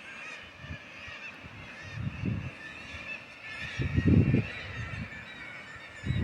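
Many birds calling at once in a steady, overlapping chorus, with two louder low rumbling bursts about two and four seconds in.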